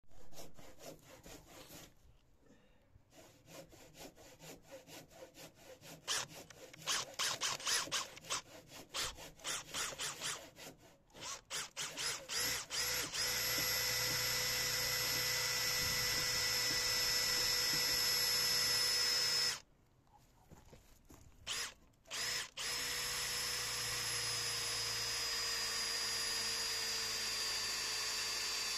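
Power drill boring a long auger bit down through a timber railway sleeper. It goes in short stop-start bursts at first, then runs steadily with a high whine, stops briefly about two-thirds of the way in, and drills on with its pitch slowly sinking as it labours deeper in the wood.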